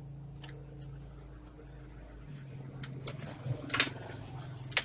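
Hands working on a laptop's internals: light clicks from connectors and cables being worked loose, then several sharp clicks and a short scrape in the last second or two as the mainboard is handled. A steady low hum runs underneath.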